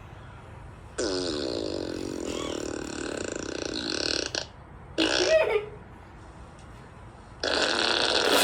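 Comic burp sound effects played through a phone's speaker: one long rippling burp of about three and a half seconds, a short one about a second later, and another starting near the end.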